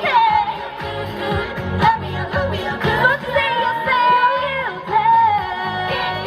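K-pop dance-pop song with female singing over a steady beat.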